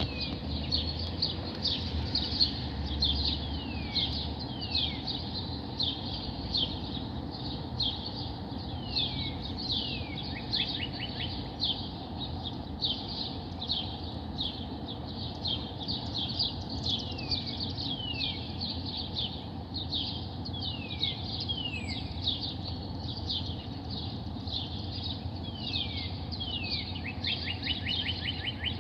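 Birds chirping: a constant run of short, quick chirps, some sliding downward, with a brief rapid trill twice, once about a third of the way in and once near the end. Under it is a steady low background noise.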